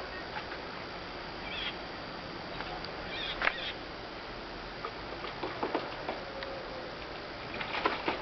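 Steady outdoor hiss with a few short, high bird calls, about two seconds and three and a half seconds in, and scattered light clicks that come thicker near the end.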